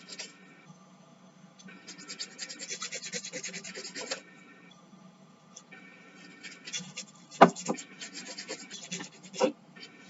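Nail file rasping back and forth along the edge of a resin pendant to smooth it, in two spells of quick even strokes, with a few sharp knocks in between, the loudest about seven seconds in.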